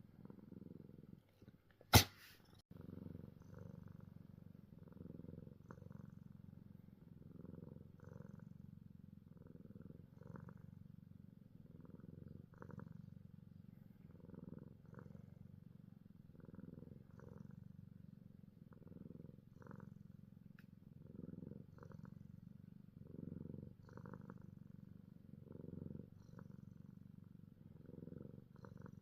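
A domestic cat sneezes once, sharply, about two seconds in, then purrs steadily, the purr swelling and fading with each breath.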